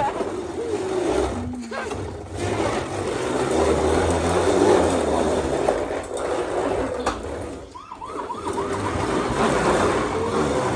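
Ride-on toy fire truck running with its siren sound effect wailing over a steady rumble of motor and wheels.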